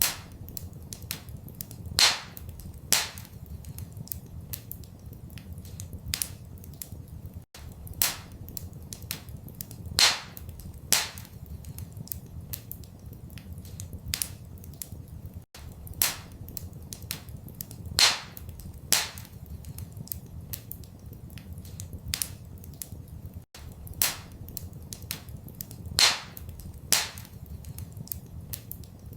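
Wood fire in a fireplace crackling, with sharp pops over a steady low rumble; the same pattern of pops comes round about every eight seconds, as a looped recording does.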